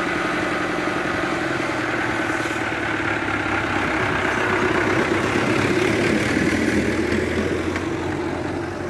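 Fiat 640 tractor's diesel engine running steadily as the tractor drives past. It grows louder as it comes closest about five to seven seconds in, then fades. The engine runs properly again now that the air lock in its fuel system has been cleared.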